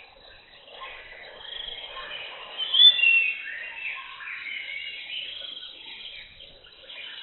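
Birds calling and chirping in jungle ambience, several overlapping whistled notes, with one loud, sharp call about three seconds in.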